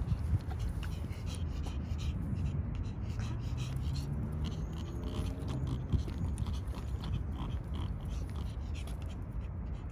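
A Pomeranian with a narrowed windpipe breathing noisily as it walks on a leash, in short rasping breaths, most of them in the first half. A steady low rumble runs underneath.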